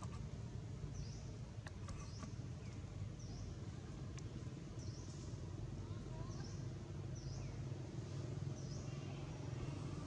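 Outdoor ambience: a steady low rumble with short, high chirps repeating about once a second and a few faint clicks.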